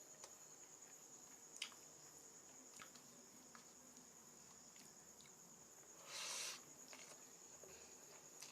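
Near silence with a steady high-pitched cricket trill, a few faint clicks, and a brief rustle about six seconds in.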